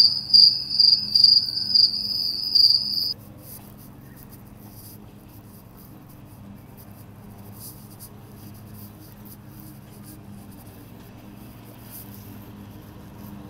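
A cricket chirping loudly in a steady high-pitched rhythm, two to three chirps a second, which cuts off abruptly about three seconds in. After that only faint outdoor background with a low hum remains.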